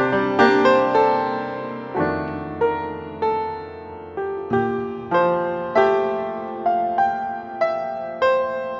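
Solo piano music playing a slow, gentle melody, each note struck and left to fade.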